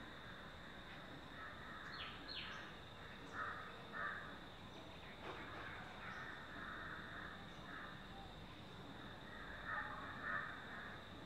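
Harsh, cawing bird calls in short bursts several times in the background, over a steady high-pitched whine.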